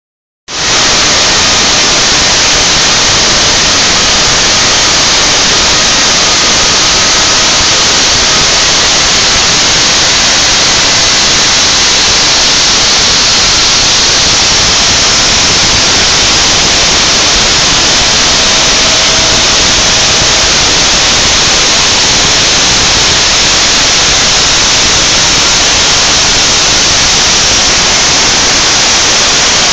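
Homemade CNC machine cutting a dash face plate: a loud, steady hiss from the spindle and cut, with faint whining tones that come and go.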